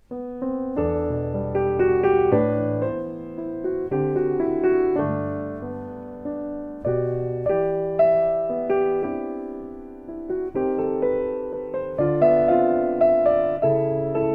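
Piano music: a slow passage of chords and melody notes, each struck and left to ring and fade, with low notes under the tune.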